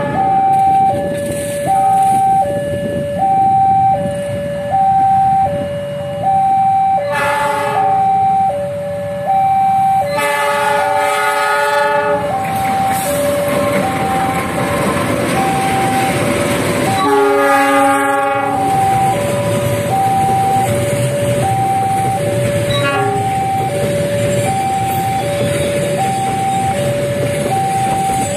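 Level-crossing warning alarm sounding its two tones, high and low in turn about every half-second, while a diesel locomotive horn blows three times, the middle blast about two seconds long. In the second half a loaded freight train hauled by a CC 206 diesel locomotive rumbles past over the crossing.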